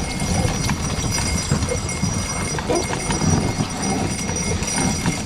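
Hoofbeats of a pair of harnessed ponies on a packed-snow road, a continuous run of clip-clop steps, with a steady high jingle from the harness over a low rumble of movement.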